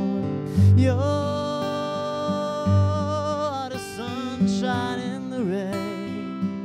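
A man sings live over his strummed acoustic guitar, holding one long note with vibrato from about a second in, then sliding down through shorter notes near the end.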